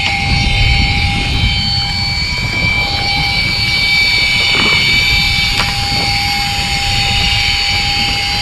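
A fishing boat's motor running steadily: a loud, even drone with a high whine over it, and a few faint clicks near the middle.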